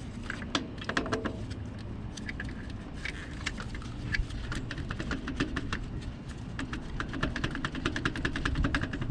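A hand ratchet clicking in quick runs as the replacement starter's 14 mm mounting bolts are run back in.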